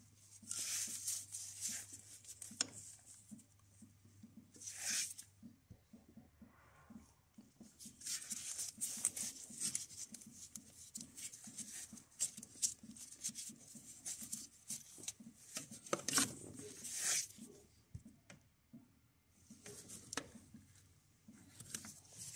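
Quiet, irregular scraping and rustling as the plastic thermostat housing of a 1.9 TDI engine is worked loose and pulled away, with gloved hands rubbing against the hoses. A faint low hum stops about five seconds in.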